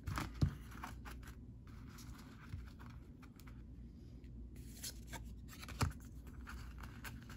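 Faint rustling and light clicks of Yu-Gi-Oh trading cards being slid through a stack in the hands, with a sharper card snap about half a second in and another near six seconds.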